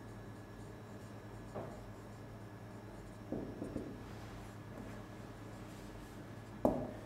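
Marker pen scratching and squeaking in short strokes on a whiteboard as a word is written, with a sharper tap near the end.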